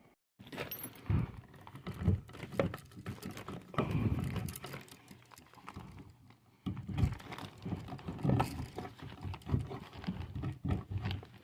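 Electrical outlet box being fitted into a wall opening while cable is pulled through it: irregular knocks, clicks and rustling from handling.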